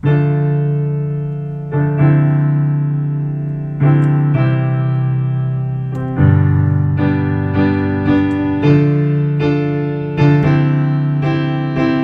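Background music on piano or electric piano: sustained chords struck every couple of seconds, then more often in the second half.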